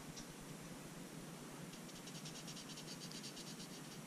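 Felt-tip marker rubbing on cardstock in quick back-and-forth strokes as an area is coloured in: one stroke at the start, then a fast, even run of strokes from about two seconds in.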